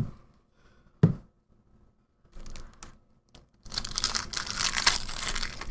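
A Double Masters booster pack's foil wrapper being torn open and crinkled in the hands, starting about two-thirds of the way in and running on continuously, after a couple of soft taps.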